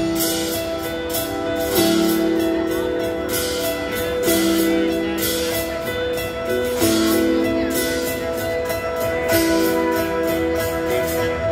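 Live rock band playing an instrumental passage: sustained guitar and keyboard chords changing about every two and a half seconds over steady drums and cymbals.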